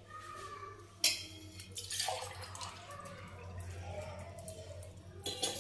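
Glassful of water being poured into a cooking pot, splashing and trickling. It starts suddenly about a second in and runs on steadily.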